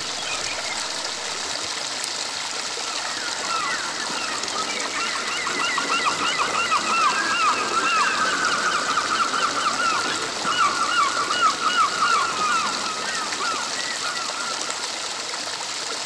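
Shallow stream rushing steadily over a low line of rocks in a small cascade. A bird calls in a long run of rapid, repeated chirps from about three seconds in until about thirteen seconds in, loudest around the middle.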